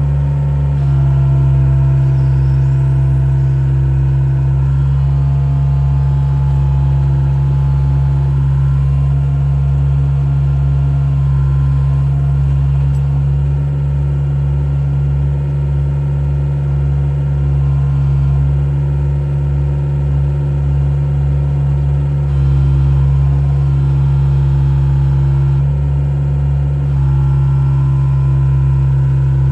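Volvo excavator's diesel engine running steadily, its tone shifting slightly a few times, around 5, 22 and 27 seconds in.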